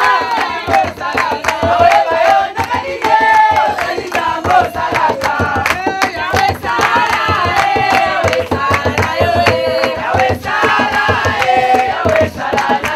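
A congregation of many voices praying, chanting and singing loudly all at once, over a fast, steady beat of claps or thumps.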